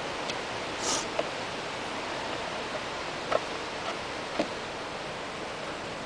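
Steady background hiss with a few faint taps and scrapes as a hand tool works at the opening of a wooden package of honeybees.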